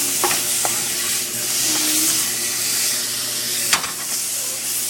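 Chicken breast sizzling steadily as it sautés in a pan with a little coconut oil and garlic powder. A few light clicks come early on, and there is one sharper knock about three-quarters of the way through.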